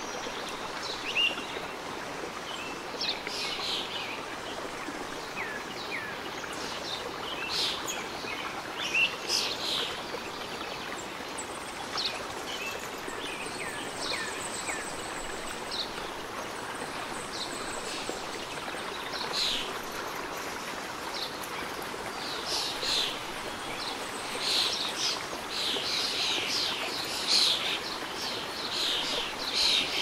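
Steady rush of flowing stream water, with small birds chirping over it in short, high calls that grow busier in the last third.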